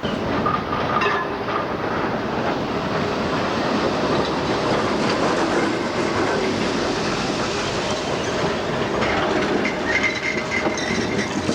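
Tram running on its rails with a steady rattle from the wheels over the track, and brief high wheel squeals about a second in and again near the end.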